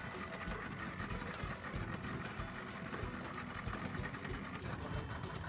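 An engine running steadily with a fast, even low chatter.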